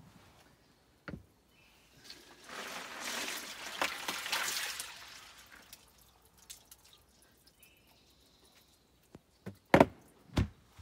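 Water sloshing and dripping as a whole raw chicken is pulled out of a cooler of chill water, after a faint click about a second in. Two loud thumps come near the end.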